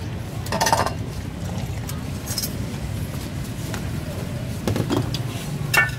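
Steady low background rumble of traffic, with a few short clicks and knocks over it; near the end a ceramic bowl knocks down onto the stainless-steel table with a brief ring.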